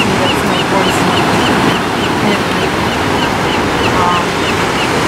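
Ocean surf washing onto a sand beach, a steady rushing noise. A small high chirp repeats about four times a second over it and stops near the end.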